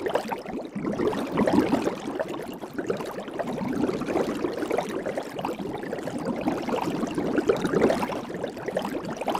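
Soapy water bubbling steadily, with a dense, unbroken run of small bubbles gurgling and popping.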